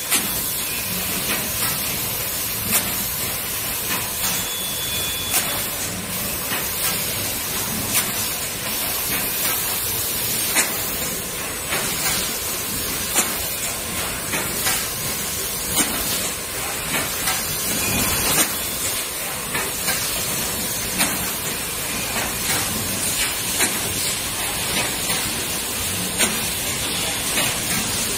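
Automatic PET lid thermoforming and stacking machine running: a steady hiss, with a sharp clack about every two and a half seconds as the machine cycles.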